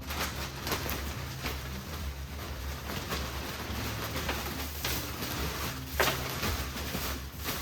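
Pine shavings rustling as they are poured and spread into a chick brooder, a string of short rustles and scrapes, the loudest about six seconds in.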